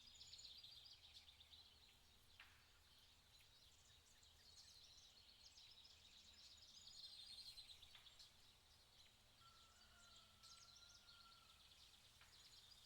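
Faint birdsong: many quick chirps and trills, with one longer whistled note near ten seconds in.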